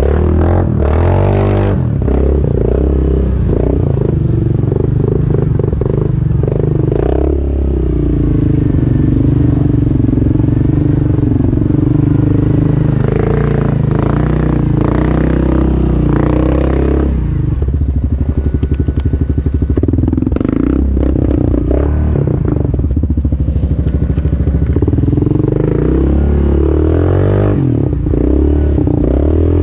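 Yamaha Grizzly 700 ATV's single-cylinder engine with a slip-on exhaust, running loud as it is ridden through mud and water, its revs rising and falling with the throttle. Around the middle it drops for a few seconds to a slow, low pulse before revving up again.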